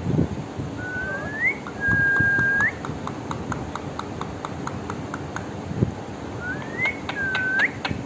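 Indian ringneck parakeet whistling: a rising glide, then a held note that flicks upward at its end, followed by a quick run of clicks about four a second, and the same whistled pair again near the end.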